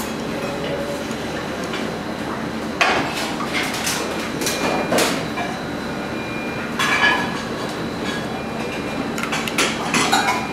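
Commercial kitchen background: a steady machine hum with intermittent clinks and clatters of dishes, pans and utensils.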